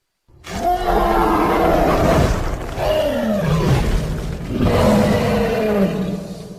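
Iguanodon dinosaur roar sound effect: a loud, drawn-out roar that starts about half a second in and rises and falls in three swells, its pitch sliding downward in places.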